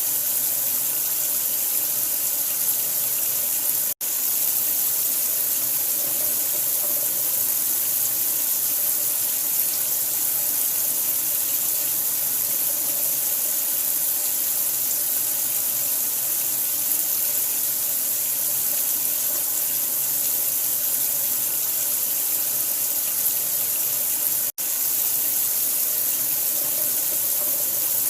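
Steady running water, like a tap left running, as a continuous even hiss. It cuts out for an instant twice, about four seconds in and again near the end.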